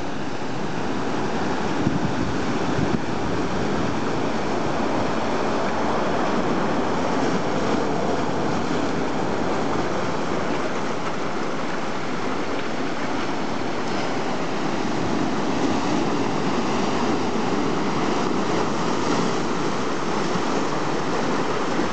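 Sea surf breaking over and washing among rocks: a steady rush of water and foam with no single crash standing out.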